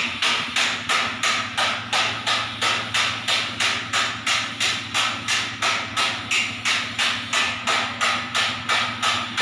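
Evenly spaced percussive strikes, about three a second, sharp and bright, over a steady low hum.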